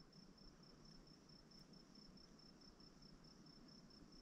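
A cricket chirping faintly and steadily: a thin, high trill in even, rapid pulses.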